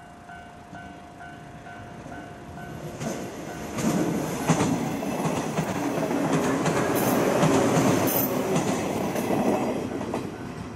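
JR West 115 series electric multiple unit approaching and passing close by, its wheels clattering over the rail joints. The sound builds from about three seconds in, is loudest as the cars go past, and fades near the end.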